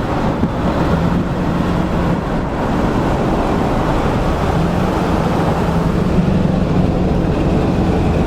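Car driving along, with a steady road and engine noise and a faint steady hum.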